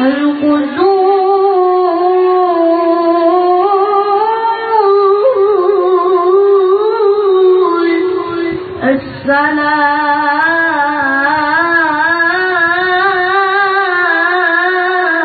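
A child reciting the Quran in the melodic mujawwad style, drawing out long wavering notes. The voice breaks off briefly for breath about nine seconds in, then starts another long held phrase.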